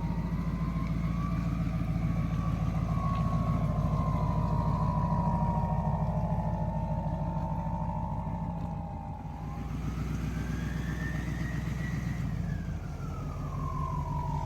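Truck engine running steadily, with a whine that rises and falls in pitch, climbing a second time in the latter part before falling away.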